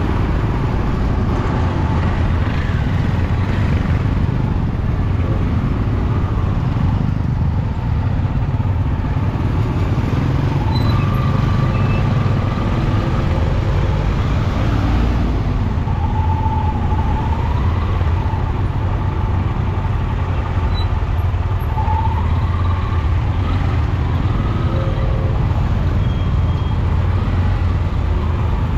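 Dense street traffic of motorbikes and auto-rickshaw tuk-tuks, heard from among it while moving: steady low engine and road noise throughout, with a few faint brief higher tones in the middle.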